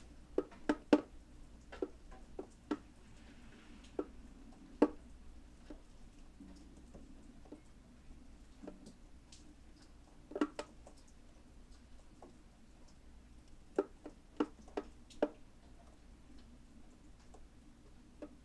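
Rainwater dripping, drop by drop: single drops fall at irregular intervals, sometimes several in a quick run, with quiet gaps of a few seconds between.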